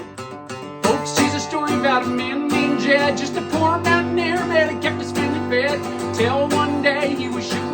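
Acoustic guitar strumming, with singing coming in about a second in.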